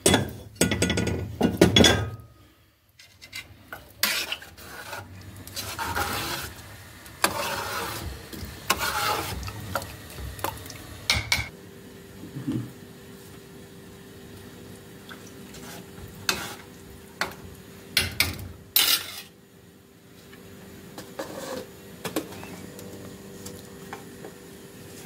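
Metal spoon and aluminium cooking pots clattering and clinking, densest in the first two seconds, then scattered knocks and clinks of utensils. A faint steady hum comes in about halfway through.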